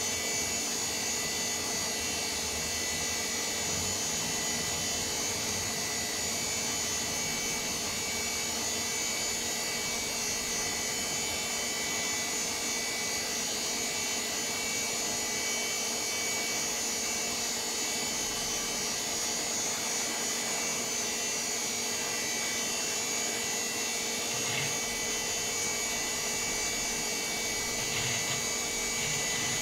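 VAX 4000-100A minicomputer running: a steady whir of its cooling fans and spinning DSSI disks, holding several fixed tones. There are a couple of faint knocks near the end.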